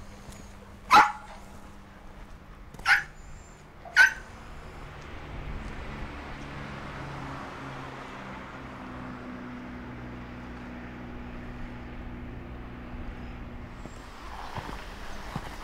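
A small dog barking three sharp single barks in the first four seconds, the last two about a second apart. A low steady drone follows.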